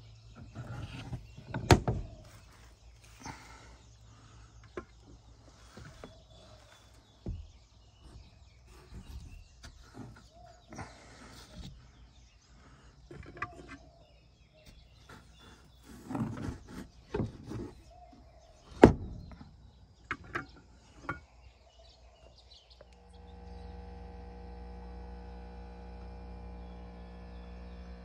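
Irregular knocks, clicks and rubbing from handling a wooden nest box and its hinged metal cover, the sharpest clicks about two seconds in and just before nineteen seconds. From about twenty-three seconds a steady electrical hum takes over.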